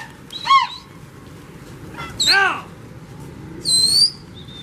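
Three short animal calls: the first two rise and fall in pitch, the second is the loudest, and the last is higher and whistle-like.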